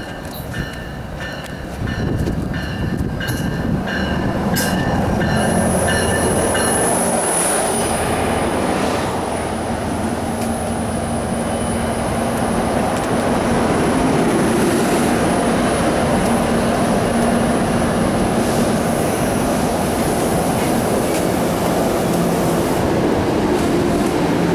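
PL42AC-hauled NJ Transit passenger train pulling into the station and braking to a stop. A bell rings about twice a second for the first several seconds, then the wheels give a high, steady brake squeal as the coaches roll past, over a loud rumble of the train.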